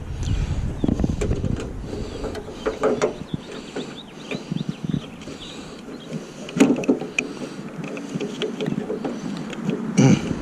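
Irregular clicks, taps and knocks of door-handle hardware and linkage being handled and fitted inside a pickup truck's door, with a couple of louder clunks, one past the middle and one near the end.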